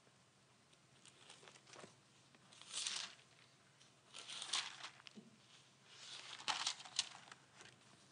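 Thin pages of a paper Bible being leafed through and turned: a few faint rustles of paper, a second or two apart.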